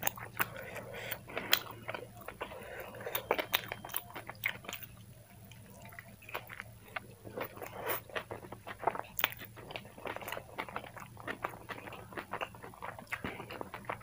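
Close-miked chewing of a mouthful of chicken roll: a steady run of sharp mouth clicks and smacks, easing off for a couple of seconds around the middle before picking up again.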